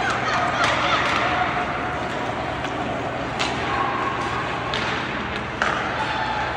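Ice hockey game play on a rink: about five sharp clacks of sticks and puck spread over a few seconds, over a steady rink hum with faint calling voices.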